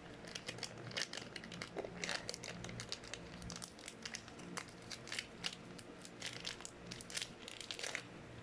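Hands working slime as more clay is added, giving a run of faint sticky crackles and clicks.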